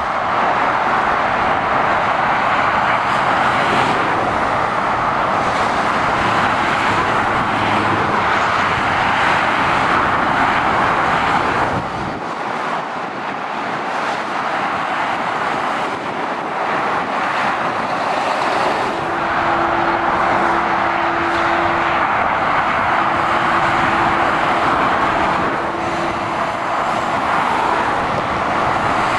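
Motorway traffic: steady tyre and engine noise of lorries and cars passing. The low rumble thins out about twelve seconds in, and a faint steady hum comes and goes twice in the second half.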